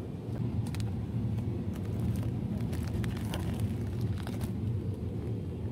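Shopping cart rolling over a supermarket's tiled floor: a steady low rumble with light rattles. A plastic noodle bag rustles in hand around three to four seconds in.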